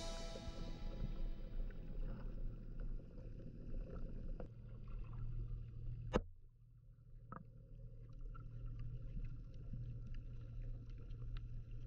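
Underwater sound picked up by a submerged GoPro: a muffled low rumble of moving water with scattered faint clicks, and one sharper click about six seconds in.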